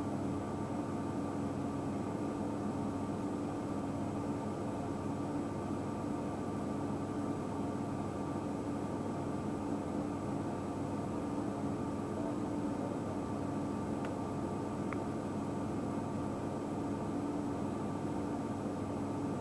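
A steady mechanical hum with hiss, unchanging throughout, with two faint ticks near the end.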